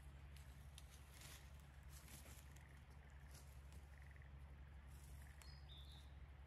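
Near silence: faint rustling of footsteps in dry fallen leaves over a low steady hum, with a couple of short, faint high calls about five seconds in.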